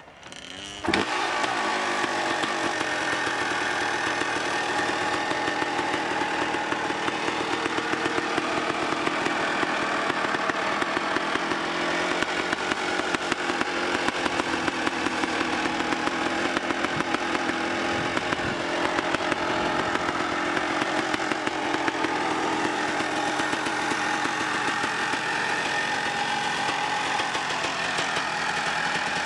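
Suzuki RM 250's single-cylinder two-stroke engine kick-started, catching about a second in and then running steadily with a rapid, crackling two-stroke firing beat. It runs on its stock exhaust, without its FMF pipe fitted.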